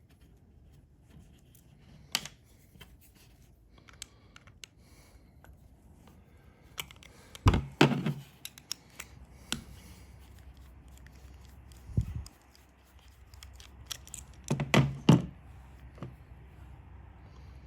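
Scattered clicks, knocks and light scraping of small parts and hand tools being handled, with a few louder knocks around the middle and about three-quarters through: a chainsaw carburetor being taken apart for cleaning.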